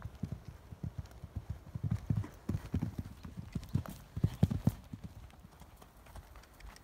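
A horse's hooves cantering on a sand arena surface: a run of dull thuds, with the heaviest ones about four to four and a half seconds in as it takes off and lands over a fence, then fainter.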